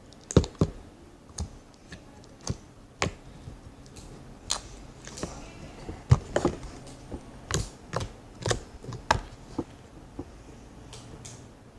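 Slime being squeezed and worked by hand, giving irregular sharp clicking pops, about a dozen and a half spread unevenly through the stretch.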